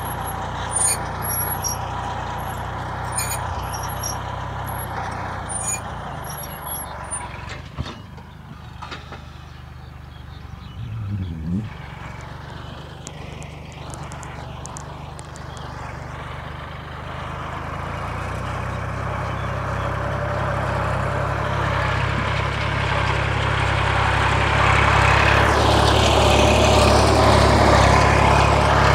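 Kubota L3608 tractor's diesel engine running steadily under load while pulling a disc plough through dry soil. It drops in loudness partway through, then grows steadily louder over the last ten seconds as the tractor comes close.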